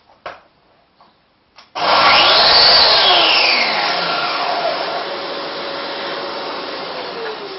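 A couple of small clicks, then about two seconds in a Mafell MT55cc plunge saw's motor is switched on and runs up to a loud whine. It is then let go, and the whine falls steadily in pitch and fades as the motor and blade wind down.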